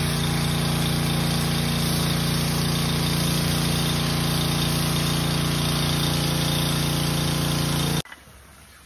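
Gas-engine pressure washer running steadily, its small engine droning with the hiss of the spray over the concrete. It cuts off suddenly near the end.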